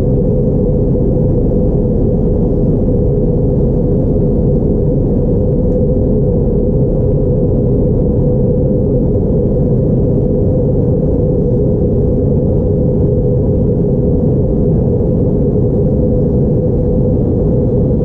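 Steady cabin noise of an Airbus A321neo in flight, heard from a window seat beside the wing engine: a constant low rush of engine and airflow with a steady hum mixed in.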